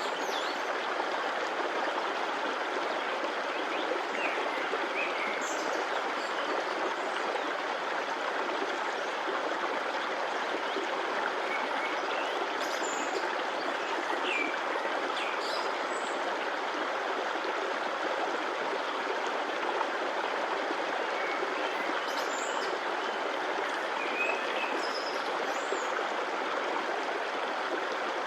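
Stream water flowing steadily, an even rushing sound, with a few faint short high chirps now and then.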